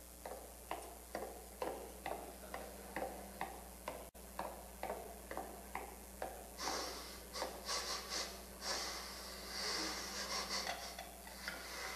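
Soft rhythmic percussive beats, a little over two a second, joined from about six and a half seconds by denser, hissier strikes.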